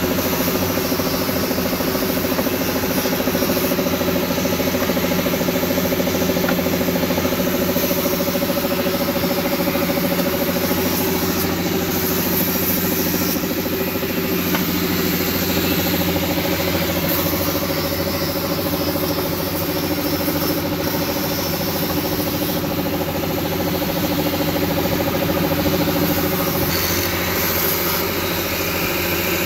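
Handheld electric angle grinder running steadily, its disc grinding the friction material of car brake pads.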